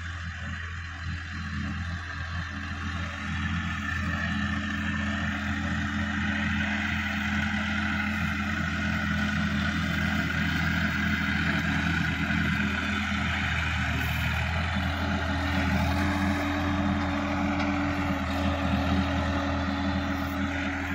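Sonalika DI-50 RX tractor's diesel engine running steadily under load while tilling, growing louder as it comes closer, its note stepping up slightly about two-thirds of the way through.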